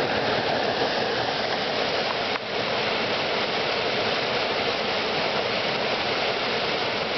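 Creek water rushing, a steady, fairly loud wash.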